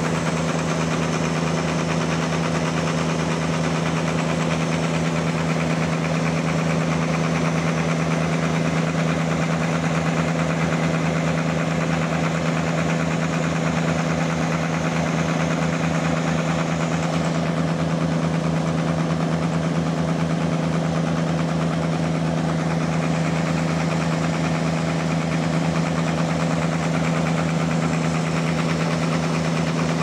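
Homemade sawmill running steadily: a constant machine hum over a fast, even low throb.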